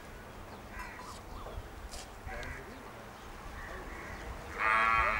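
Short bird calls, a handful of them about a second apart, over a steady outdoor background. Music starts abruptly near the end and is the loudest sound.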